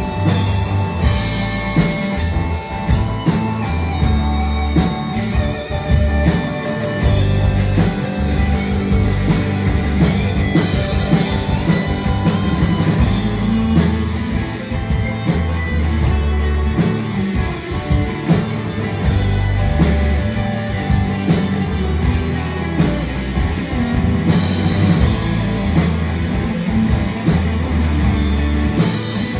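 Rock band playing live: guitars over bass and a drum kit in an instrumental passage, at a steady loud level.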